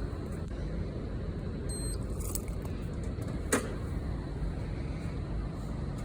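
Automatic entrance door closing gently, with one sharp latch click about three and a half seconds in, over a steady low outdoor rumble. The soft close shows the door no longer slams now that its faulty cylinder has been replaced.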